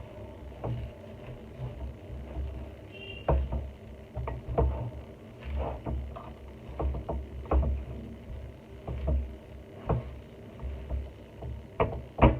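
Kitchen work: irregular knocks and thumps of utensils and food being handled, roughly one or two a second, over a faint steady hum.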